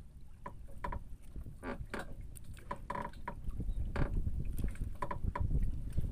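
Irregular knocks and clicks of a fish and longline being handled against the floorboards of a small wooden boat, over a steady low rumble.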